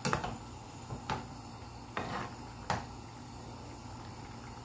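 A ladle knocking and scraping against a nonstick pan while stirring a simmering tomato-and-egg broth: four light knocks about a second apart.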